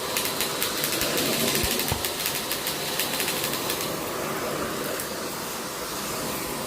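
Vacuum cleaner running with a steady rushing noise. Rapid clicking and rattling run through the first half, then smooth out about four seconds in.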